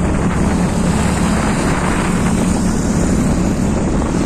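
Wind rushing over the microphone on a moving motorcycle, over the steady drone of its engine and road noise.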